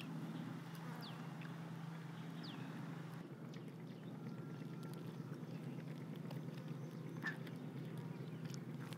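Outdoor ambience: a steady low hum with a few short, high, falling bird chirps in the first second and a half and one more chirp near the end. Faint light clicks come from handling the grilled fish with bamboo chopsticks.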